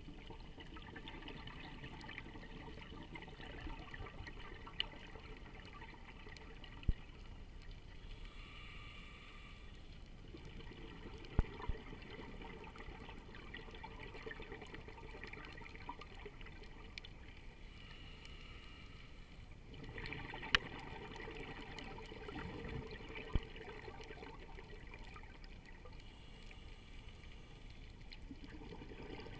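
Muffled underwater sound picked up through a sealed action-camera housing, with a scuba diver's exhaled bubbles gurgling in bursts every several seconds. A few sharp clicks stand out.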